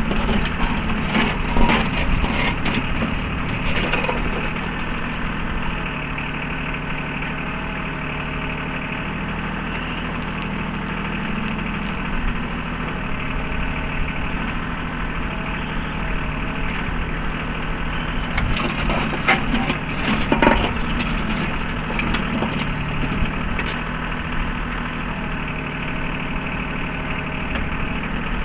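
Mahindra 3616 compact tractor's diesel engine running steadily while its 3720 backhoe digs. Crackling and scraping from the bucket working the ground come near the start and again about two-thirds of the way through.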